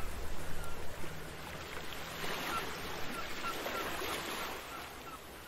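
Soft, even wash of noise like surf, with faint short chirps repeating through the middle, slowly fading out.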